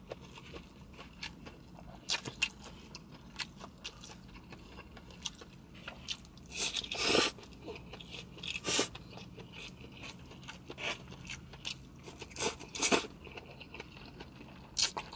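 A person chewing a mouthful of stir-fried rice noodles close to the microphone: a run of wet, sticky mouth clicks, with a few louder moments partway through and near the end.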